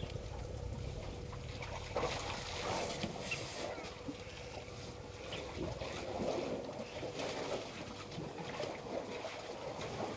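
African elephants drinking at a shallow waterhole: water sloshing and splashing irregularly as their trunks dip and swirl in the pool, under a faint steady hum.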